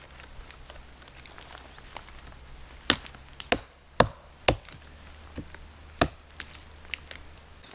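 Sharp woody chops as a chaga conk is hacked off a birch trunk: about five hard strikes over a few seconds, with a few lighter knocks between them.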